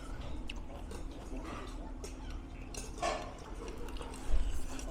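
Noodles being slurped and chewed in short bursts, with a loud low thump near the end.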